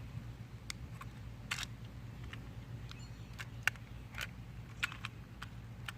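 Quiet, scattered small plastic clicks and taps, about eight in all, as Beyblade tops are handled and fitted onto their launchers. A low steady hum sits underneath.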